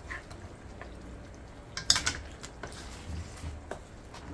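Lemon juice being squeezed by hand into a pan of simmering egg and onion curry, with faint drips and a brief sharp clatter about two seconds in.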